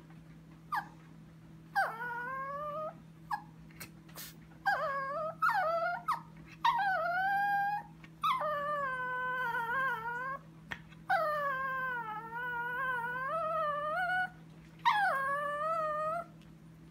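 Chihuahua whining: about seven drawn-out, wavering whimpers, several rising at the start, the longest lasting about three seconds. A steady low hum runs underneath.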